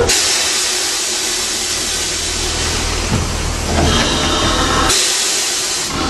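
Steam hissing steadily from an Ugly-class industrial saddle-tank steam locomotive as it runs light along the track, the hiss growing stronger near the end.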